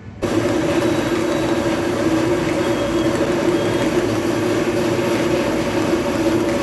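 A loud, steady mechanical noise with a low hum, cutting in abruptly about a quarter second in.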